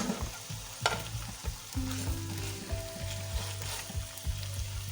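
Marinated chicken pieces sizzling in oil and masala in a pan, with two sharp clicks of a utensil against the pan in the first second as the pieces are turned, over a steady low hum.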